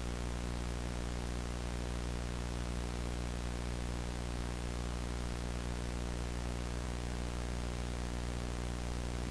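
Steady low electrical hum with a hiss of static over it.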